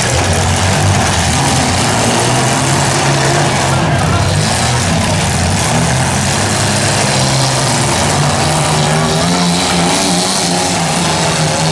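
Several demolition-derby compact cars' engines running and revving together as the cars push and ram one another, a loud, steady din of engines.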